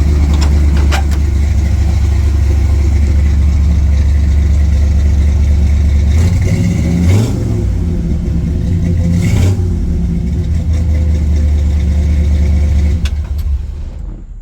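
1967 Chevrolet C10 pickup's V8 idling steadily, its freshly repaired exhaust with no major leak to be heard. It is revved briefly twice midway, then switched off near the end and dies away.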